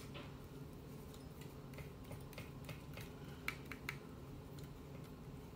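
Faint scattered light clicks and taps of a small screwdriver and fingers on the plastic parts of a Trimline telephone handset being put back together, with a few sharper clicks about three and a half to four seconds in. A low steady hum lies underneath.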